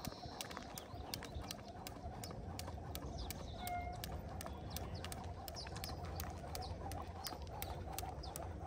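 Skipping rope slapping the ground in a steady rhythm, sharp ticks at about three a second, with a few faint bird chirps.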